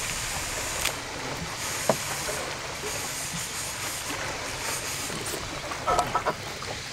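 Steady hiss of water and wind around a small fishing boat, with a single sharp click about two seconds in and a few brief, louder noises near the end as the rod is swept up into a hookset.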